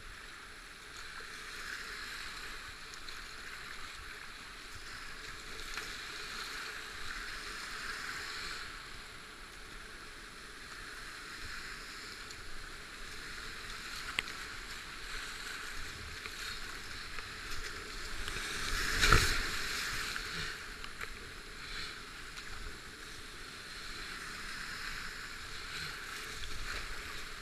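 Whitewater rapids rushing steadily around a kayak running down a chute, with paddle splashes. There is one sharp click near the middle, and about two-thirds of the way in one loud sudden surge of water as the boat drives through a wave.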